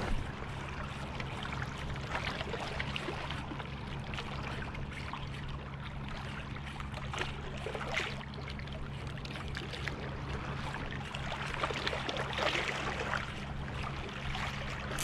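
Small waves lapping and trickling against the rocks at the water's edge, over a steady low hum.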